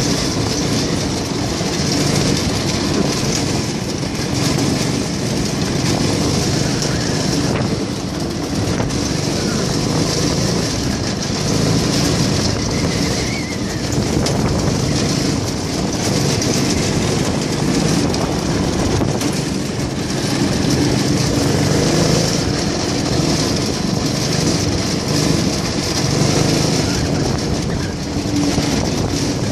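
Go-kart's small engine running steadily as the kart drives along a dirt road, mixed with constant road noise.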